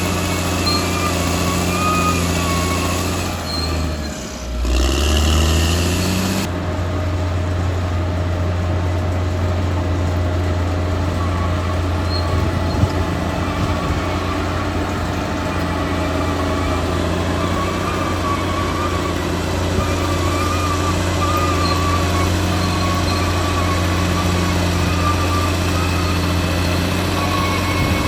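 Caterpillar D6R XL bulldozer's diesel engine running steadily at working speed. About four seconds in, the engine note dips and its pitch drops, then climbs back. A faint wavering whine rides over the engine.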